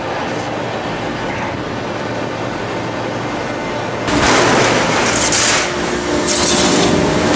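Hydraulic pre-compression lid baler running: a steady hum from its power unit, then about four seconds in, two louder hissing, rushing stretches as it cycles, with a short dip between them.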